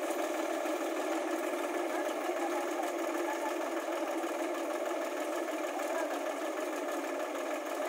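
Sonalika tractor's diesel engine running steadily under load, driving a thresher that is threshing dried chickpea plants: a continuous, even mechanical drone of engine and threshing drum together.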